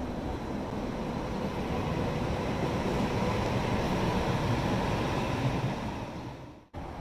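Hong Kong Light Rail vehicles running along the track, a steady rumble that grows louder as they come near. The sound cuts out abruptly for a moment near the end.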